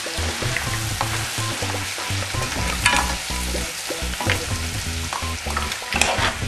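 Mussels, prawns, squid and diced tomatoes sizzling steadily in a hot pan while being stirred, with a utensil clattering against the pan about three and six seconds in.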